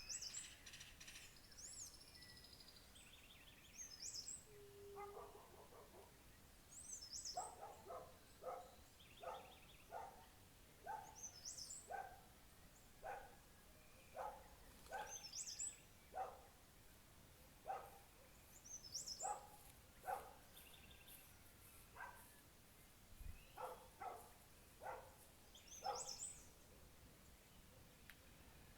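Faint birdsong: one bird repeats a short high chirp about every two seconds. From about seven seconds in, a steady run of short lower calls joins it, coming every half second to a second.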